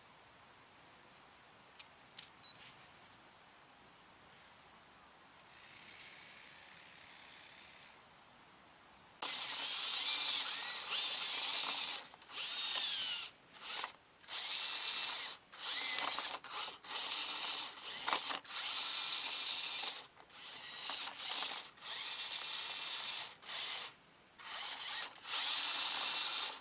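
Small geared electric motors of a Tamiya kit-built radio-controlled crawler whining in short runs, starting and stopping about a dozen times from about a third of the way in, the pitch rising and falling with speed. Before that there is only a faint steady high hiss.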